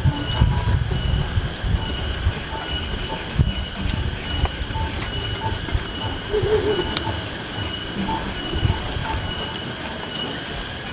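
Steady, high-pitched shrill of insects in pulsing tones that repeats throughout, with irregular low knocks and handling noise underneath.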